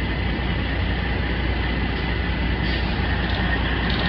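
Heavy machine's engine running steadily under load while it shifts a mobile home into position, with a steady high whine over the low rumble.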